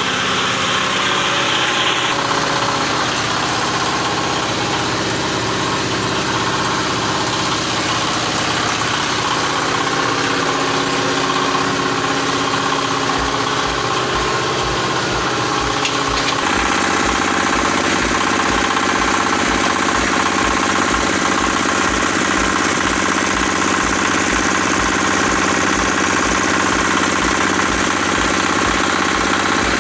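Diesel engine powering a 15-ton hydraulic baling press, running steadily. Its note changes a little past halfway, and a low, regular pulsing runs through the second half.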